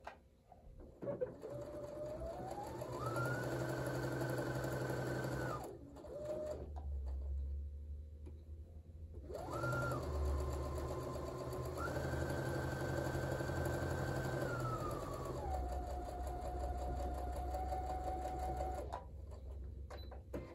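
Brother sewing machine stitching a quarter-inch seam through pinned quilting fabric. The motor whine rises in pitch and holds, stops about five seconds in, then starts again near ten seconds, changes speed a few times and slows to a lower pitch before stopping near the end.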